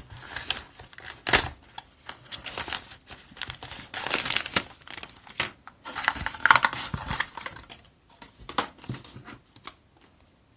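Small cardboard earphone box being opened and its packaging handled: irregular rustling and crinkling with clicks and scrapes, and a sharp snap about a second and a half in.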